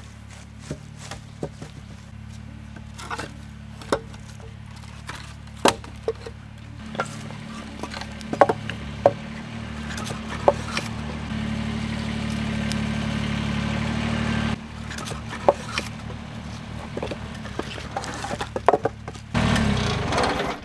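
Split firewood pieces knocking and clattering as they are laid onto a woodpile by hand, over a steady low hum that grows louder for several seconds in the middle and then drops off suddenly.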